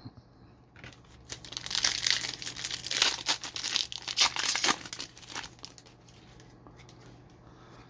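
Wrapper of a trading-card pack being torn open and crinkled, a crackly run of small rips and rustles lasting about four seconds, then dying away.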